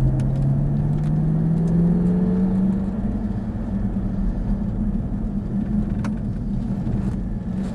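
Jaguar F-Type's supercharged engine heard from inside the cabin, accelerating hard with its note rising steadily for about three seconds, then easing off as the car slows for the next corner.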